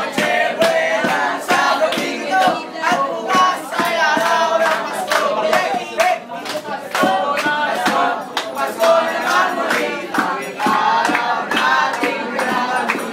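A group singing together, with hand claps keeping a beat.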